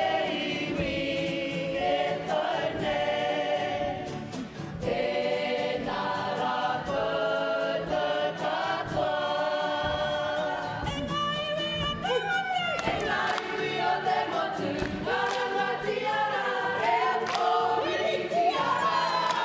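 A Māori kapa haka group singing an action song together, many men's and women's voices in harmony, with guitar strumming underneath.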